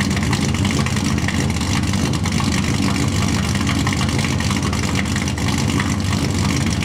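Pickup truck engine idling steadily through an open Bassani side-exit exhaust with no muffler, no catalytic converters and no baffles, a loud, choppy exhaust note at an even pitch.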